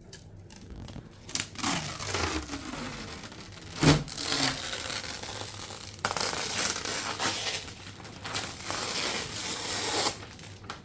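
Packaging being handled: plastic and padding rustling and crinkling, with a few short squeaks and one sharp knock about four seconds in.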